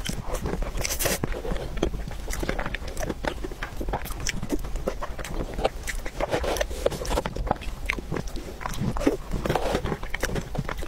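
Close-miked eating sounds of soft chocolate cake taken from a spoon: wet mouth smacking and chewing, a dense run of small clicks.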